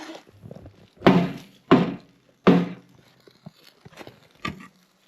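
Firewood being handled at a campfire: three heavy wooden thunks about two-thirds of a second apart, then a fainter knock near the end.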